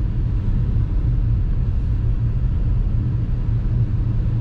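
Steady low road and tyre rumble heard inside the cabin of a BAIC Beijing X7 SUV driving over coarse, rough asphalt, with a soft rushing noise on top that the cabin insulation keeps well damped.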